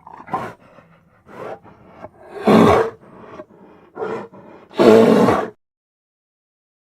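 Grizzly bear roar sound effect: a few short, low growls, then two louder roars of under a second each, about two and a half and five seconds in.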